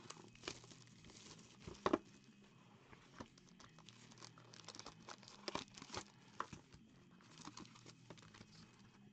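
Encased football card box being opened by hand: the foil wrapping crinkles and tears, and the cardboard box and lid scrape and tap in irregular crackles, the loudest about two seconds in.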